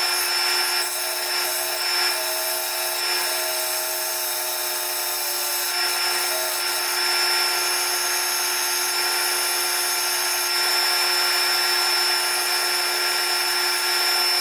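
Bench belt sander running steadily with the end of a 5/16-inch round bar held against the moving belt to grind it to a taper: a constant motor hum with an abrasive grinding hiss, stopping abruptly at the end.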